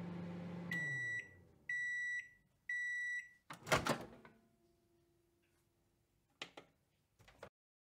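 Microwave oven running with a steady hum that winds down, then three long high beeps about a second apart as the timer reaches zero. A loud clunk follows, the door opening, and a couple of faint clicks near the end.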